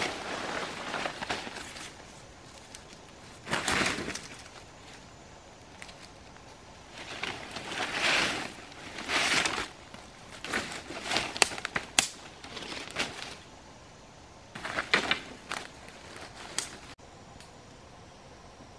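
Dry leaves, twigs and undergrowth rustling and crackling in irregular bursts as a person moves through forest brush on foot. It drops to a quiet, steady background near the end.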